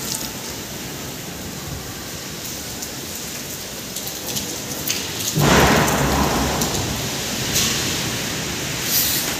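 Steady rain of a heavy storm, with a sudden loud thunderclap about five and a half seconds in that rumbles for a second or so and fades.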